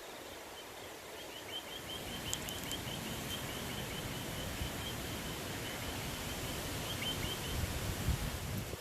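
Steady outdoor wind-like noise. A small bird gives a quick run of high, evenly repeated chirps, about four a second, that stops near the end.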